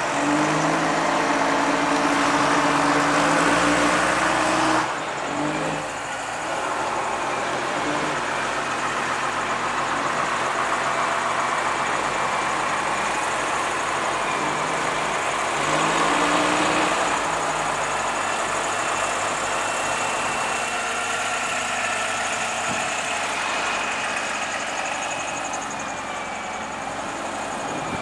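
Diesel engines of vintage buses driving past one after another. The engine note climbs in steps as a bus pulls away in the first five seconds, and again about halfway through.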